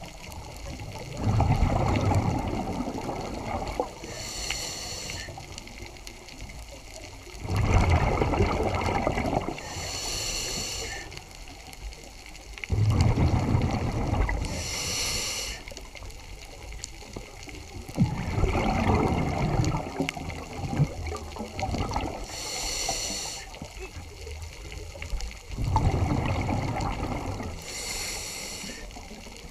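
Scuba diver breathing through a regulator, heard underwater: a short hiss on each inhale, then a longer gurgling rush of exhaled bubbles, five breaths about every five to six seconds.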